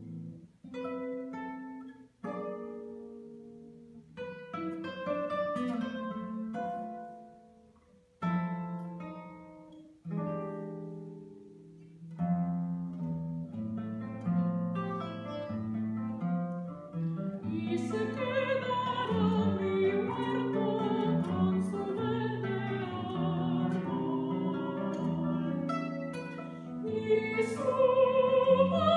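Classical guitar playing slow plucked notes and chords that ring out and fade between short pauses, then a more continuous flowing line. About two-thirds of the way through, a soprano voice enters, singing with vibrato over the guitar, louder toward the end.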